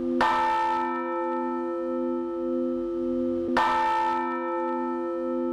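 A large church bell struck twice, about three and a half seconds apart, each stroke ringing on with many overtones over a low hum that swells and fades in slow pulses.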